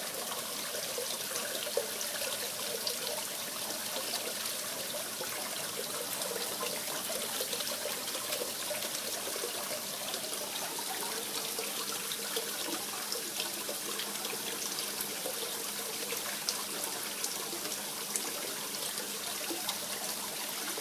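Steady trickling and splashing of water in a koi pond, with small droplet ticks scattered through it.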